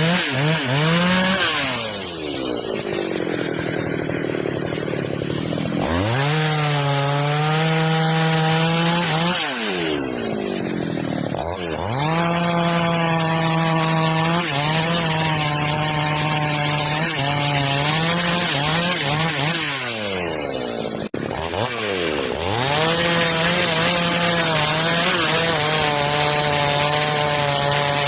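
Chainsaw engine running at high revs while cutting through wood. Its note drops away and climbs back several times as the throttle is eased off and opened again.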